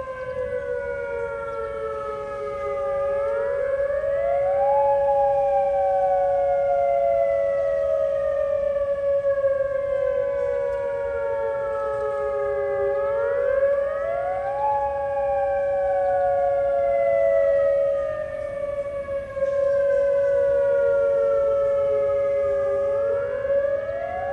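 Outdoor tornado warning siren sounding in a routine test. A wailing tone rises quickly over about two seconds, then sinks slowly for about eight, and repeats about every ten seconds over a steady tone that holds underneath.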